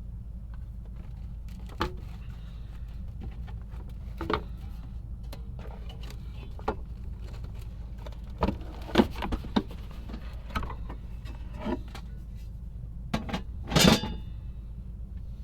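Scattered light clicks and metallic clinks of small parts and tools being handled, about a dozen irregular taps with the loudest clatter near the end, over a steady low hum.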